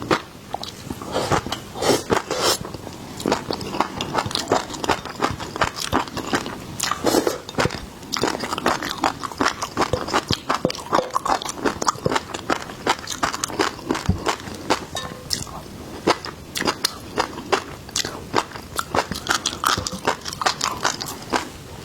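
Close-miked eating of seafood: a steady run of crunchy bites and wet chewing, with many sharp crackles and clicks.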